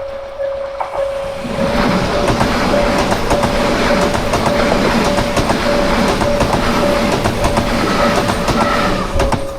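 An E6 series Komachi Shinkansen train passing over a level crossing, its wheels clattering over the rail joints from about a second and a half in until shortly before the end. The crossing's electronic warning bell rings steadily in a pulsing tone throughout.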